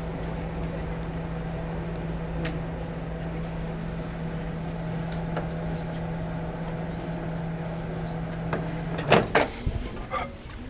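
Microwave oven running with a steady hum that stops about nine seconds in, followed by a few sharp clicks and knocks as its door is unlatched and swung open.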